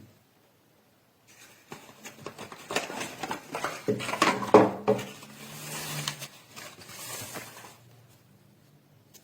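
Hands handling small hard objects: a busy run of clicks, knocks and rustling that starts about a second in, peaks in the middle and dies away near the end.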